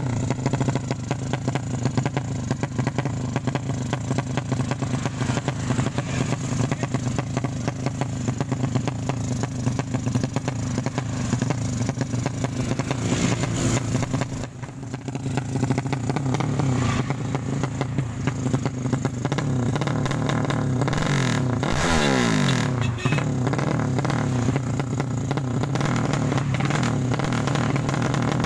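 Tuned 200cc sleep-engine drag motorcycle running loud and continuous, with a brief drop about halfway through and a falling rev about three-quarters of the way in.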